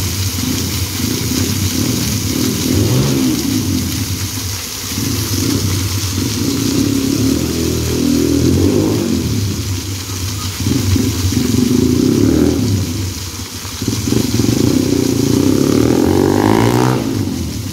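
A motorcycle engine revving and running loudly, its pitch rising and falling several times with a sharp climb near the end. Under it, the steady splash of a plaza fountain's water jets.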